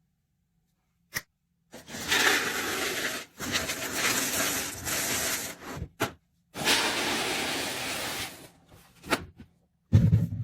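Handling noises from restocking: long stretches of rubbing and rustling, broken by a couple of sharp clicks.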